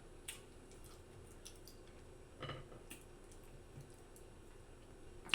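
Mouth smacking and chewing close to the microphone: scattered soft, wet clicks, a somewhat fuller smack about two and a half seconds in and a sharp click at the very end.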